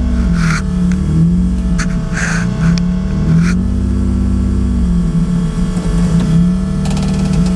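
Single-turbo Dodge Stealth race car's 3.0 L V6 running at low revs while rolling slowly, heard from inside the stripped, roll-caged cabin, its pitch dipping and rising a little. Three short hisses come in the first half.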